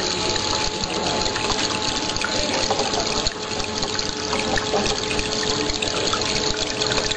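Water from a miniature tabletop waterfall splashing and trickling steadily, with a steady hum underneath.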